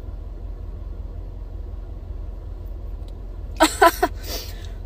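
A woman's sneeze set off by a nasal swab: about three and a half seconds in, three quick catching gasps, then a short breathy burst. A steady low hum runs underneath.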